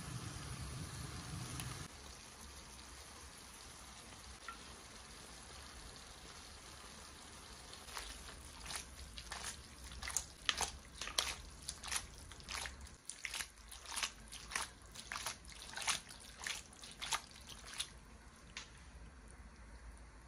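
Caserecce pasta with mussels sloshing and slapping in a frying pan as it is tossed over and over, about one and a half tosses a second for about ten seconds, starting a little under halfway through. This is the finishing toss that works the grated pecorino into the sauce.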